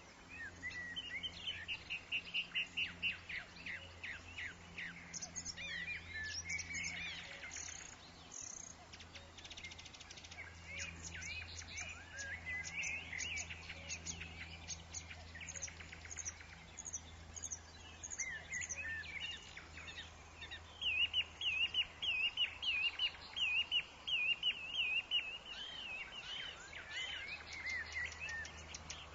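Several woodland birds chirping and singing over one another, with quick runs of repeated notes and a dense stretch of chirps in the second half. A faint steady low hum runs underneath.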